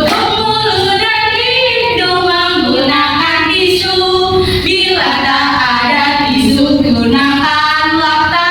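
Female voices singing an Indonesian children's song about the right way to cough and sneeze, unaccompanied and without a break.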